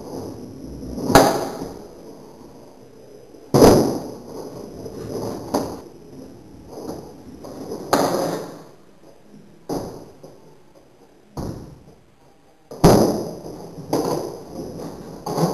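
Skateboard on concrete during flatground tricks: about seven sharp clacks of the deck and wheels hitting the ground, with stretches of wheels rolling in between.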